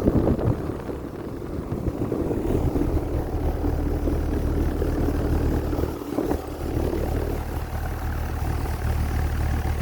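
Carrier Comfort outdoor air-conditioner condensing unit running with a steady low hum.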